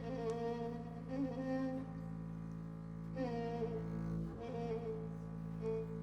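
Violin playing an Arabic song melody in long held notes, over a steady low drone in the accompaniment.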